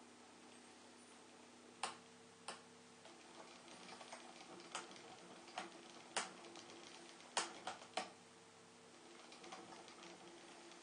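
A vibrating-string toy running: a faint steady hum of a few held tones, broken by irregular sharp clicks and ticks, most of them between about two and eight seconds in.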